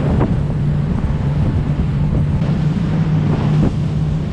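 Outboard motor running at a steady speed as a small boat moves across open water, with a steady engine hum, wind buffeting the microphone and the rush of the wake.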